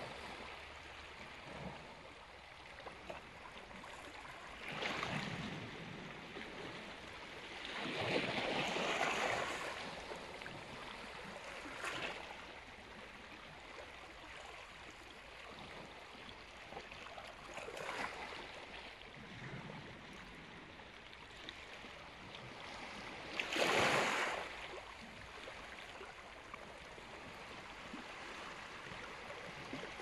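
Small waves of the Black Sea lapping and washing over shoreline rocks and pebbles: a steady wash with about five louder surges, the loudest about two-thirds of the way through.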